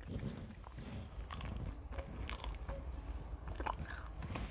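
A person chewing and biting food close to the microphone, with scattered small crunches and clicks; a deep-fried wonton is bitten near the end.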